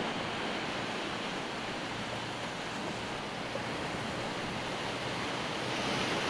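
Waves washing onto a shallow sandy beach, a steady surf noise that swells a little near the end.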